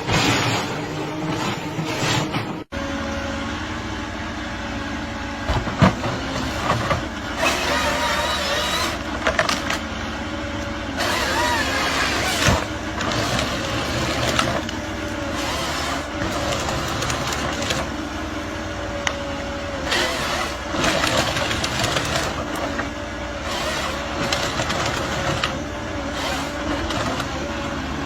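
An engine running steadily, with a few knocks and faint voices in the background; the sound changes abruptly about three seconds in.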